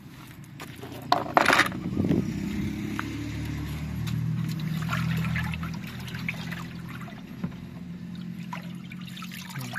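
Soapy water splashing and sloshing in a plastic tub, with a loud splash about a second in and smaller splashes after it. A steady low hum runs underneath.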